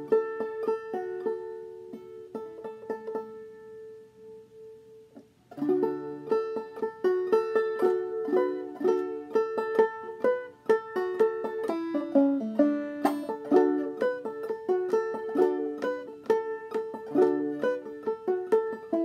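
Five-string banjo played clawhammer style in double D tuning (aDADE). A chord rings and slowly fades at first. Then, about five and a half seconds in, the tune starts up at a brisk steady pace: a stream of picked notes with brushed strums between them.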